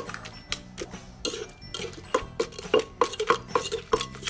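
Wooden pestle pounding in a clay mortar, a steady run of dull strikes at about four a second, crushing chilies, garlic, shrimp paste and soaked dried shrimp into a wet chili paste.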